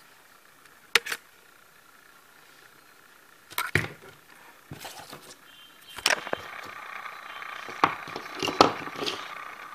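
Handling clicks and knocks, then about six seconds in a small DC motor from a toy helicopter starts and spins a plastic rotor as a fan, giving a steady whir with a thin high whine. More clicks sound over the whir.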